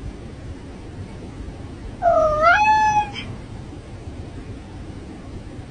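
A cat meows once, about two seconds in. The call lasts about a second and dips, then rises in pitch before levelling off, over a steady low background rumble.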